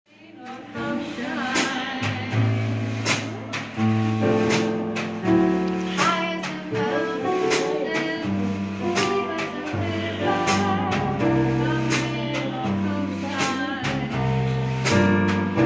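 Live jazz from a keyboard-and-drums duo: sustained chords on a Casio keyboard with a woman singing, and a snare drum and cymbal keeping time with evenly spaced strokes. The music fades in at the start.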